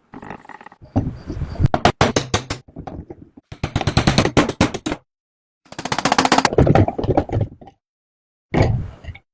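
Rapid mechanical clattering made of many quick impacts, in four or five bursts that start and cut off abruptly, with brief dead silences between them.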